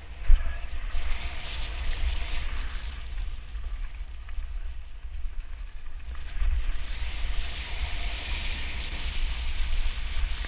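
Wind buffeting a GoPro microphone on a moving mountain bike: a steady low rumble, with the hiss of bike tyres rolling over a gravel trail that eases off in the middle and picks up again. One sharp knock just after the start.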